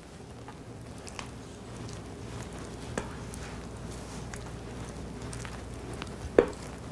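Wooden spoon scraping thick cake batter out of a glass mixing bowl, the batter dropping into a glass baking dish, with soft scrapes and light clicks and one sharper knock near the end. A low steady hum runs underneath.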